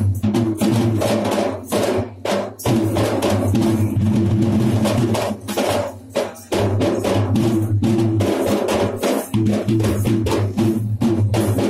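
Traditional Sri Lankan ritual drumming for the Sath Paththini dance: fast, dense drum strokes over a steady low tone, with short breaks about two seconds in and again around six seconds.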